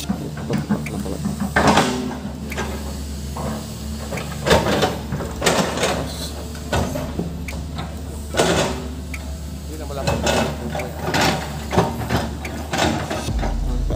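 Hydraulic excavator's diesel engine running steadily while its steel bucket scrapes and knocks against dirt and rock, in irregular bursts every second or two.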